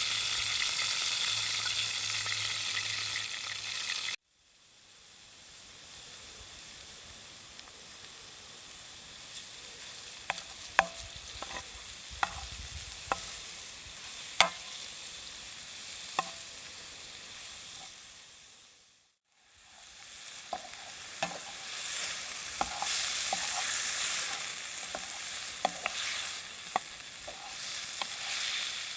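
Food sizzling in a hot pan, a steady hiss with scattered sharp clicks. It drops off abruptly about four seconds in, comes back quieter, cuts out again near the two-thirds mark, and returns louder.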